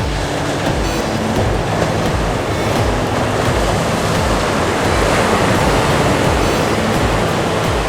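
Sea waves washing onto the shore in a steady rush of surf, swelling slightly about five seconds in, with a few faint steady low tones of background music beneath.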